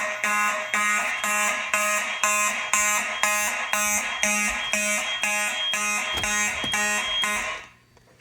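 Fire alarm horn sounding in even buzzy pulses about twice a second, set off by a smoke detector under test; it cuts off near the end.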